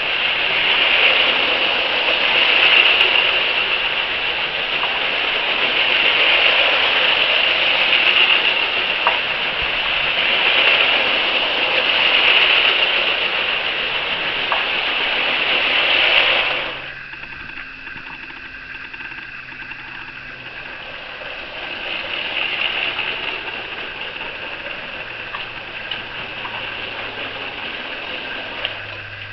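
Lego City 60051 trains' battery-powered Power Functions train motors whirring as they run along plastic track, with a few faint clicks. The whirring drops sharply about two-thirds of the way through, then rises again a little later, more quietly.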